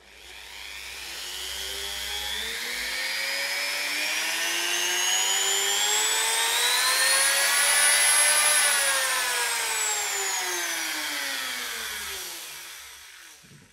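Parkside PFBS 160 B2 rotary multi-tool running without load, its high motor whine rising in pitch and getting louder as the speed is turned up to maximum about eight seconds in, then falling and fading out as it is turned down and runs down near the end. The tool is rated for 10,000 to 40,000 rpm across its speed settings.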